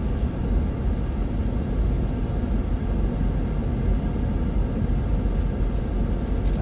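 Steady low rumble of a car driving along a paved road: engine and tyre noise heard from inside the moving car.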